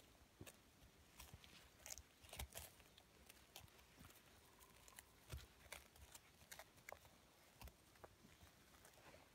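Faint, irregular taps and knocks of an animal moving about, a few a second.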